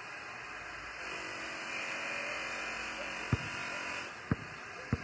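A basketball bouncing on pavement three times, the last two close together, over a steady whirring background noise.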